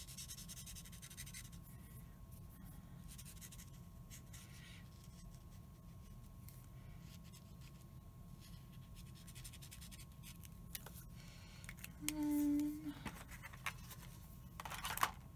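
Marker tip scratching and stroking on small card stock as sky colour is laid down, faint and irregular. About twelve seconds in, a short hummed voice tone stands out, and a brief rustle of handling comes near the end.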